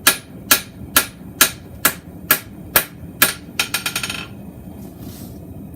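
Hand hammer forging a mild steel bar on an anvil, drawing it out: evenly paced ringing blows, about two a second. They end a little past halfway in a quick run of lighter taps.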